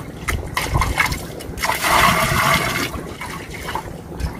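Rice-washing water being poured into a container of water, splashing in a few spells, the longest about two seconds in.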